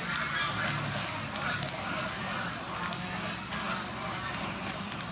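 Cheese-filled potato balls deep-frying in hot oil: a steady sizzle with many sharp crackles and pops.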